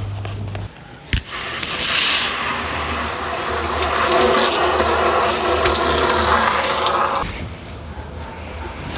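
Garden hose spray nozzle jetting water into an empty polypropylene tank, the spray hissing and splashing against the plastic wall and base. It starts just over a second in, right after a sharp click, and is loudest at first. It stops about seven seconds in.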